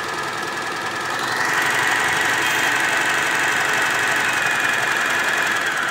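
Butterfly JHQ3010 electric sewing machine running steadily while stitching a rolled picot edge on thin fabric. It speeds up and gets louder about a second and a half in.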